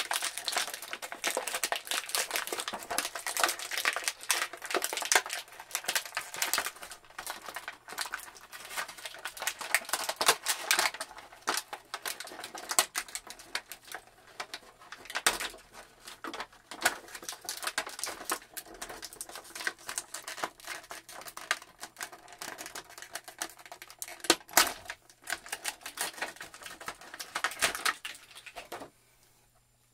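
Action-figure packaging being opened by hand: rapid crinkling of stiff plastic and card, with many sharp clicks and snaps, stopping near the end.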